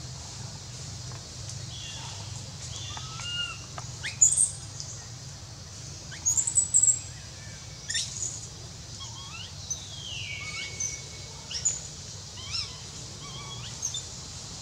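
Short high-pitched chirps and whistled animal calls, several gliding in pitch, with sharper squeaks about four and seven seconds in and a longer call falling in pitch about ten seconds in, over a steady low hum.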